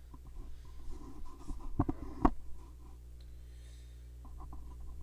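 Handling noise of a camera and tripod being repositioned at close range: light scraping and rustling with two sharp knocks about two seconds in, over a steady low hum.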